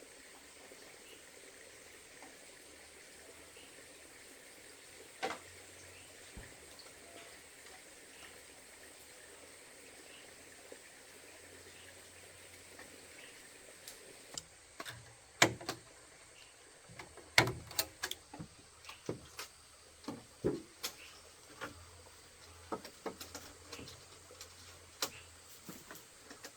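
Faint steady background hiss, joined about halfway through by a run of irregular sharp knocks and clicks.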